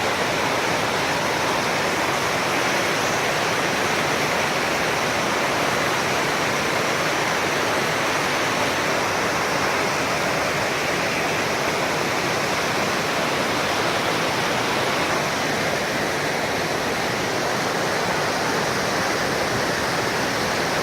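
Large waterfall crashing down close by: a steady, loud, even rush of falling water.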